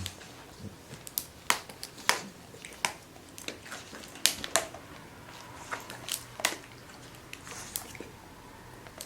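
Irregular sharp crackles and clicks of a baby-snack puff package being picked at and handled by a baby squirrel monkey trying to get it open.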